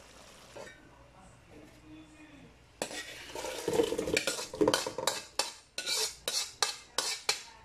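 Beef pieces and sauce tipped out of an aluminium wok into a larger pot, then a metal spoon scraping and knocking against the wok to push the rest out, in a quick run of about nine strokes.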